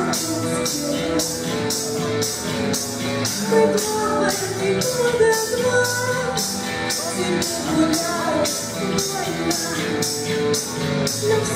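Live pop-rock band playing, a voice singing over the band with a steady drum beat.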